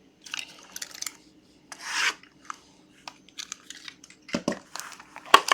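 A sealed trading card box being opened by hand: short, irregular scrapes and rubs of cardboard and plastic wrap, the strongest about two seconds in.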